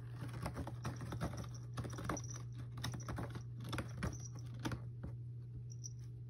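A cat crunching dry food: a quick, irregular run of crunches that stops about five seconds in.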